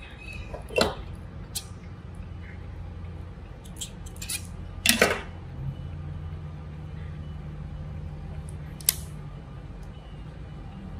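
Hands handling a small cotton garment: cloth rustling, with a few short sharp clicks (the loudest about five seconds in), over a steady low hum.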